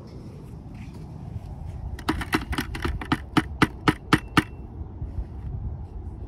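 Metal soil probe knocking against the inside of a plastic bucket while soil is mixed: about ten sharp knocks, about four a second, starting about two seconds in. Before that, wind rumbles on the microphone.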